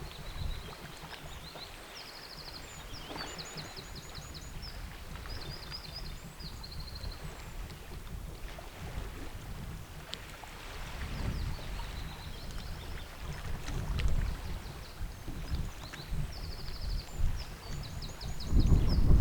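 Wind buffeting the microphone in gusts, the strongest near the end, over small waves lapping on a fjord beach. A songbird sings short high trills several times.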